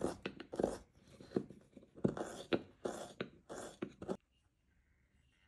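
Hand carving chisel paring chips from a block of hard Japanese zelkova (keyaki) wood, pushed by hand: a quick series of scraping, crunching cuts with sharp clicks, about two a second, stopping about four seconds in.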